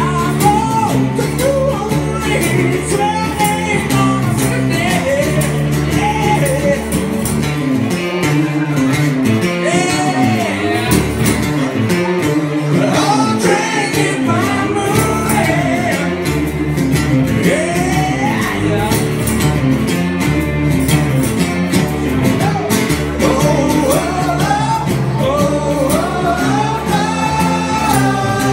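Live acoustic rock song: a man singing over acoustic guitar and a second guitar.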